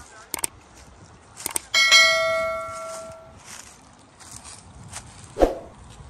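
Subscribe-button animation sound effect: two quick mouse clicks, then a bright notification bell ding about two seconds in that rings and fades over a second and a half. A short thump near the end.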